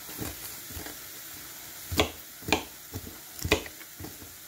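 Kitchen knife slicing an onion, the blade knocking down onto the cutting surface in irregular chops. The four loudest chops come about half a second apart in the second half.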